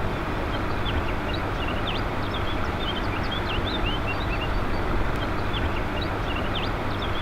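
Small birds singing many short, quick chirps over a steady rushing noise.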